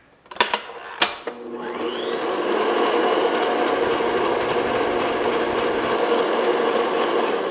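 Stand mixer with a wire whisk attachment starting up, its motor whine rising to speed and then running steadily, whipping egg whites and sugar toward soft peaks. A couple of knocks come just before the motor starts.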